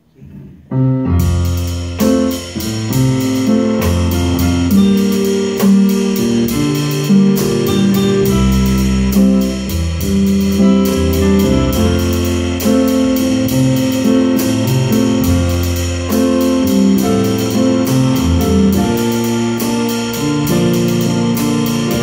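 A small band of two electronic keyboards and a drum kit starts playing about a second in. Held keyboard chords and bass notes run over a steady drum-and-cymbal beat.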